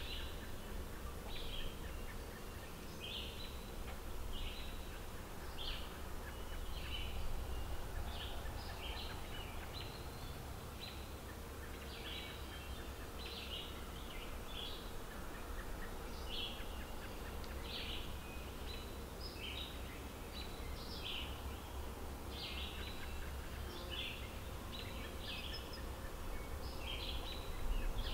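Small birds chirping, short high calls repeating about once or twice a second, over a low steady rumble.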